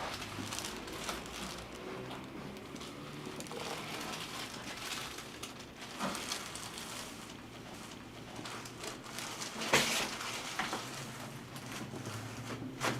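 Faint rustling of a patient shifting on a chiropractic table, a small click about six seconds in, then a sharp crack near ten seconds: a spinal joint cavitating during a chiropractic adjustment.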